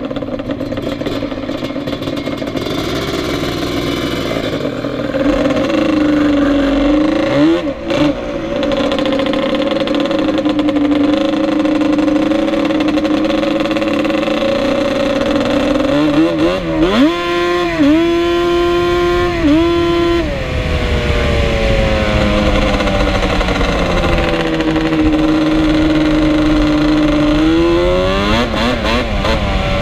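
Ported two-stroke sport ATV engine with an aftermarket expansion-chamber pipe, running under way with the revs rising and falling. A quick run of throttle blips comes in the middle, and the revs climb again near the end.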